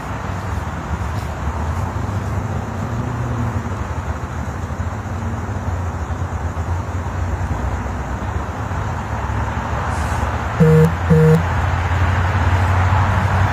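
Steady road traffic noise with a low hum. About eleven seconds in come two short beeps, half a second apart, much louder than the rest.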